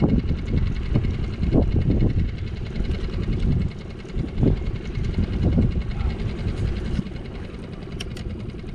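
Wind buffeting the microphone as uneven low gusts, easing to a lower, steadier level about seven seconds in.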